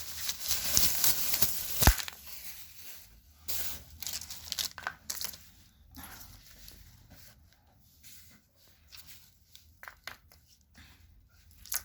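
Packaging being torn open and crinkled by hand, loudest in the first two seconds and ending there in a sharp snap, then quieter rustling and handling clicks.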